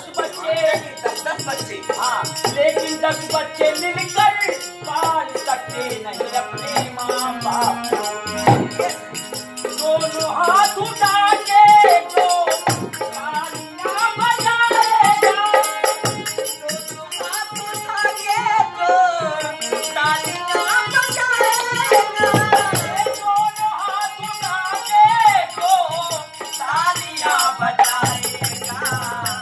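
Nirgun devotional folk song performed live: men singing over harmonium, with a dholak drum and small hand cymbals keeping a steady jingling beat.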